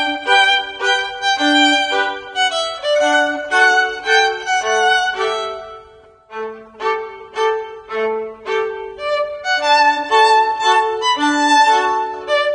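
Background music: a violin melody of short, separate notes, dipping briefly about halfway through.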